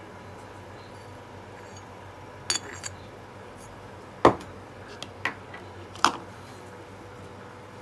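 A glass reagent bottle and its ground-glass stopper being handled, giving about six short glass clinks and knocks in the middle of the stretch, the sharpest about four seconds in. A steady low hum runs underneath.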